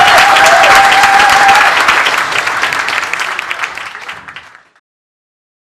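Audience applauding loudly, the clapping dying away over the last couple of seconds and then cutting off to silence.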